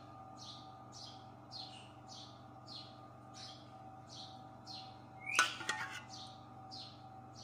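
A bird chirping over and over, about two to three short falling chirps a second, over a steady low hum. About five and a half seconds in there is a brief, louder rasping sound.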